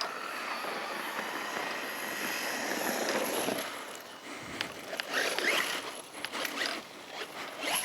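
Small electric motor of a remote-control fox target whining as it drives across the field on its 3S battery, with the scrape and rustle of its wheels over the ground. The whine rises and falls with its speed.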